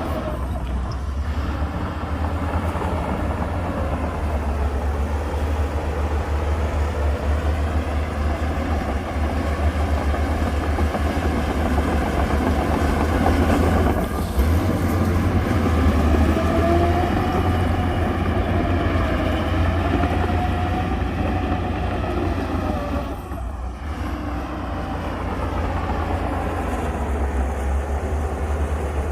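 Heavy diesel engine of earthmoving machinery running steadily with a deep rumble, and a whining tone that rises and falls about halfway through.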